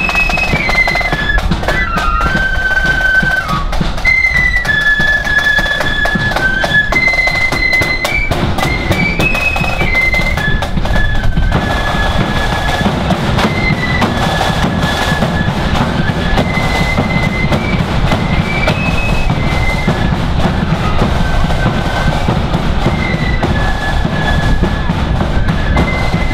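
Marching flute band playing: a high flute melody over a heavy, steady beat of bass drum and side drums.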